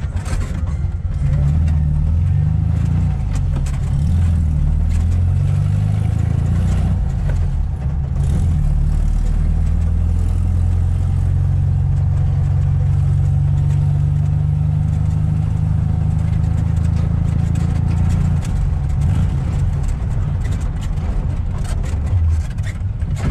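VW Fusca (Beetle) 1600 air-cooled flat-four engine pulling the car along, heard from inside the cabin. Its note rises and falls through the first several seconds, holds steady through the middle, and drops lower in the last few seconds.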